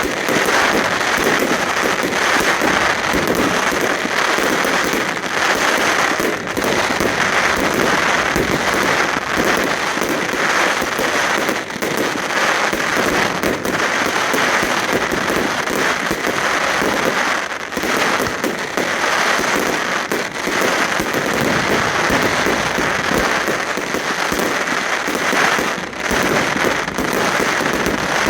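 Aerial fireworks going off in a dense, continuous barrage: a steady, unbroken crackle of many small reports with no pause between them.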